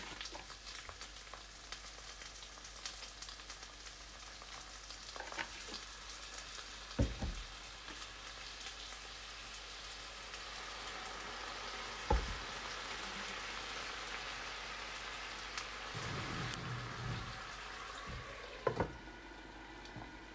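Food frying in a pan with a dense crackling sizzle, which stops shortly before the end. A few sharp knocks, like a utensil striking the pan, come three times.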